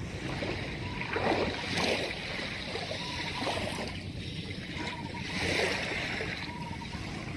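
Small waves washing on the shore, a steady wash that swells twice.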